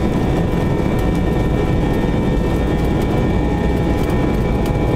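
Airbus A321-200 jet engines at take-off power during the take-off roll, heard from inside the passenger cabin: a steady loud roar with thin steady whining tones over it and the rumble of the wheels on the runway underneath.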